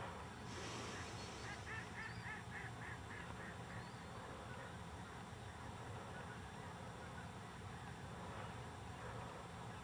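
Faint honking of distant geese: a quick run of calls, about four a second, starting a second and a half in, over a low steady hum.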